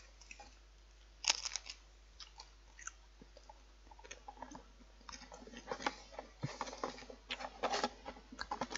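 A person bites into a Pringles crisp and chews it. There is one sharp crunch about a second in, then a run of small crunches that gets busier near the end. The crisp is two years past its expiry date.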